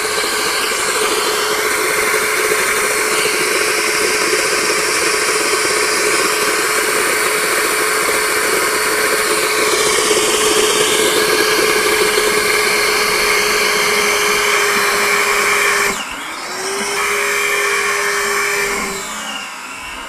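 Ryobi PCL735 18V cordless 6-gallon wet/dry vacuum running on its high setting, sucking water up the hose: a steady motor whine over rushing air. About sixteen seconds in the sound breaks and dips, then the motor pitch climbs back and falls off again near the end: the tank is full and water is spitting out of the blower port.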